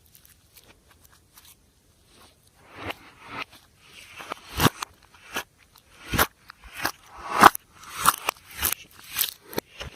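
Slime being pressed and worked by hand: a run of crackles and sharp pops, starting about three seconds in.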